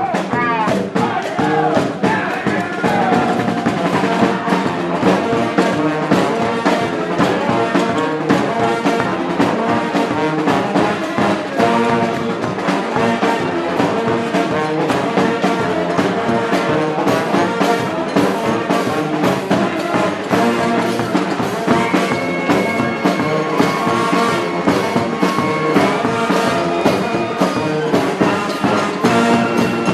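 Brass street band playing: massed horns over a steady drum beat, with one horn holding a long high note about two-thirds of the way through.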